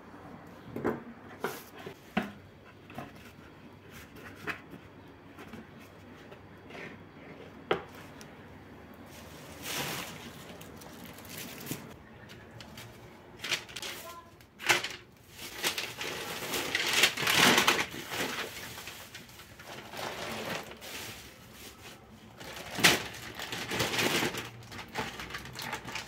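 Handling sounds: scattered light clicks and knocks, then rustling and crinkling of paper and plastic. The crinkling is loudest for a couple of seconds a little past the middle.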